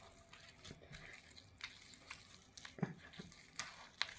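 Hand pressing and smearing a lump of margarine across a stone worktop to soften it: faint squishing and rubbing with a few soft ticks.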